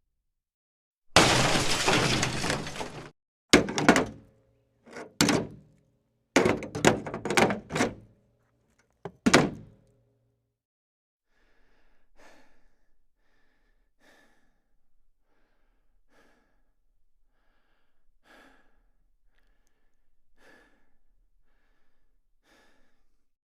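A loud crash lasting about two seconds, then several sharp thuds and bangs. These give way to faint, evenly spaced taps, about one every one to two seconds.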